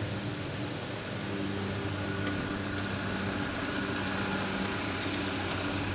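A steady mechanical hum with several held low tones, joined by a faint higher whine about two seconds in.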